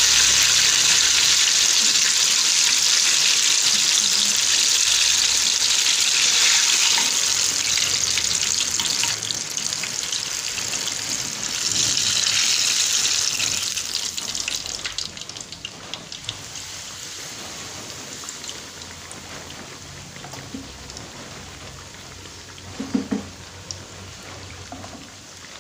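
Battered banana fritters deep-frying in hot oil in a pan: a loud steady sizzle that swells again about twelve seconds in, then dies down to a quieter crackle. A brief knock near the end.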